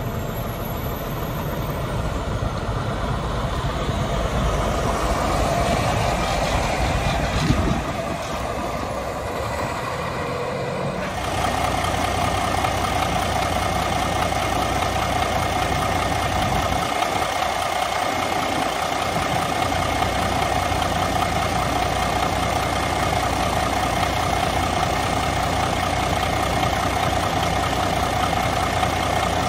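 Kenworth T800 log truck's Cummins X15 diesel heard from a distance as the truck moves, with one sharp click. About eleven seconds in it switches to the same engine idling up close, a steady even hum.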